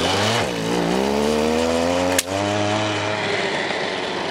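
A go-kart's small gasoline engine running hard under load as it tows against braided fishing line, its pitch dipping and then climbing. A sharp snap about two seconds in is the line breaking at the reel, after which the engine runs on at a slightly lower, steady pitch.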